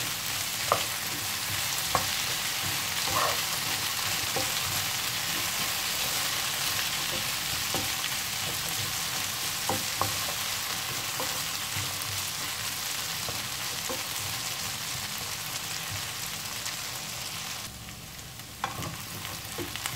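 Diced potatoes sizzling in butter in a non-stick frying pan, with a wooden spatula scraping and knocking against the pan now and then as they are stirred. The sizzle dips briefly near the end.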